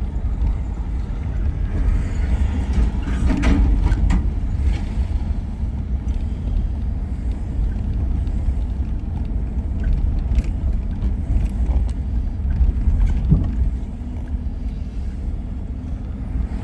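Car driving on city streets, heard from inside the cabin: a steady low road-and-engine rumble, with a few short clicks or knocks.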